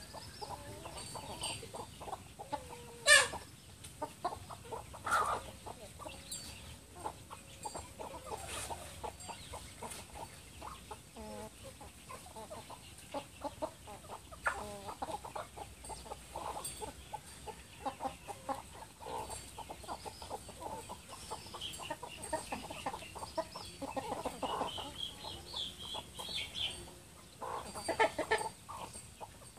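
A flock of chickens clucking on and off as they forage, with one sharp, loud squawk about three seconds in and another loud burst of calls near the end.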